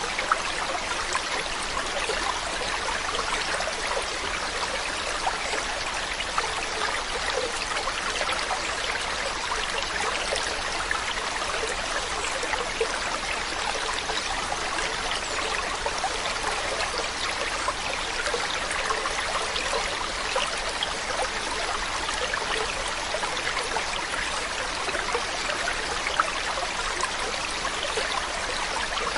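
Stream water running steadily over rocks, a constant rushing with fine splashing and trickling.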